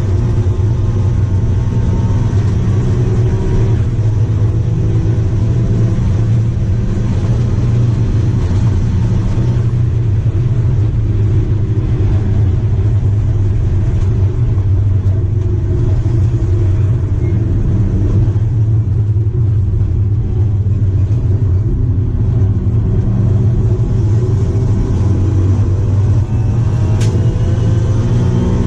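Daihatsu Charade GTti's 993 cc turbocharged three-cylinder engine running hard at high revs, heard from inside the stripped-out race car's cabin. Near the end the revs drop and then climb again with a rising pitch.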